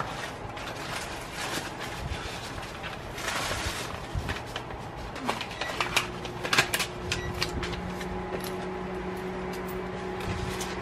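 Paper rustling and short clicks from a greeting card and its envelope being handled, loudest in the middle, over a steady low hum.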